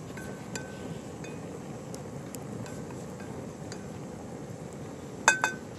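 A metal utensil clinking against a metal cooking pot: two light ringing clinks in the first second, then a loud ringing clink followed quickly by a second one about five seconds in, over a steady low hiss.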